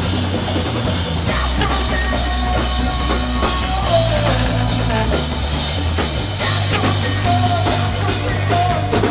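Rock band playing live and loud: drum kit, electric guitar and bass guitar together, the bass holding low notes that change every second or so under a bending guitar line.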